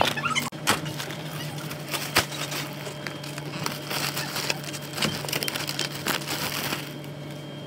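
Plastic carrier bags and a laminated shopping bag rustling and crinkling as groceries are packed, with scattered clicks and knocks. A steady low hum runs underneath.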